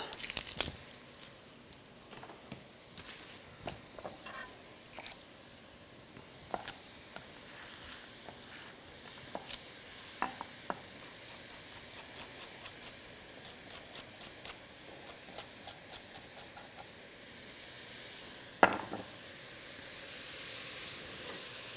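Zucchini and other vegetables sizzling steadily in a frying pan while a knife taps quickly on a wooden chopping board, cutting Swiss chard stalks. Near the end there is one sharp knock, then a wooden spoon stirs the sizzling pan.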